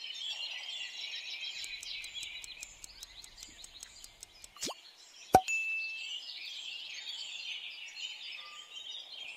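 A steady background of birds chirping, with a quick run of ticks about two seconds in. Around the middle, a short falling swoosh and a sharp pop with a brief ding mark the answer reveal.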